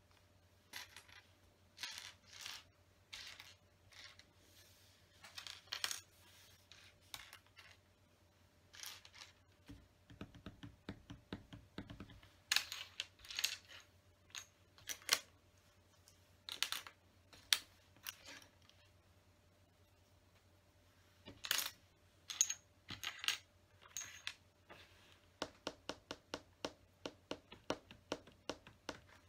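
Loose plastic LEGO bricks clicking and clattering as they are sorted through by hand on a tabletop. The clicks come irregularly, with a short pause past the middle and a quick run of light clicks near the end.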